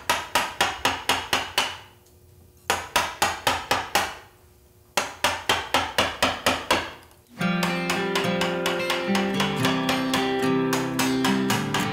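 Wooden mallet striking the handle of a carving gouge driven into wood, in three quick runs of even knocks, about six a second, with short pauses between. About seven seconds in, acoustic guitar music takes over.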